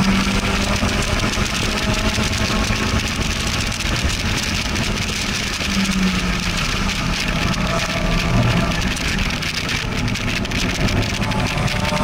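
Car engine pulling hard at track speed, heard from the open cockpit of a roadster with its top down, mixed with heavy wind rush. The car is running flat out on the straight, then eases off and slows for a corner in the second half.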